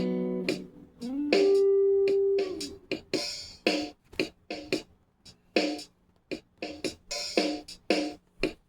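Guitar playing: a chord rings out and fades, a held note bends slightly, then short choppy muted strums follow at roughly two a second.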